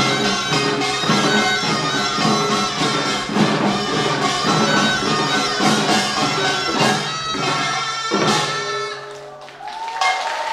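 Korean pungmul farmers' band music: drums and gongs beating a fast, even rhythm, with a wind instrument playing a melody over it. About nine seconds in the percussion thins out and a single long held note begins.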